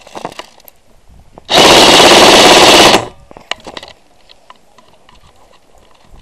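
Airsoft gun firing a sustained full-auto burst very close to the microphone, about a second and a half long and loud enough to clip, with a few small clicks before and after.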